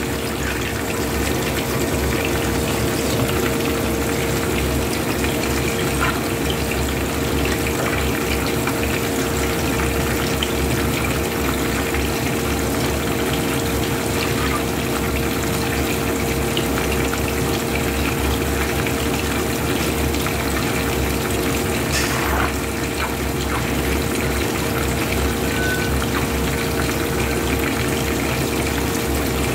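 Whole fish frying in a pan of hot oil, the oil bubbling and sizzling steadily. A steady low hum runs underneath.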